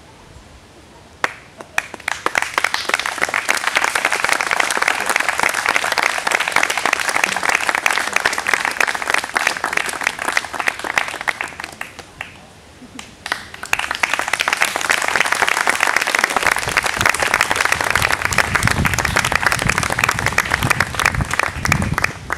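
Crowd applauding: clapping breaks out about a second in, fades briefly around the middle, then picks up again.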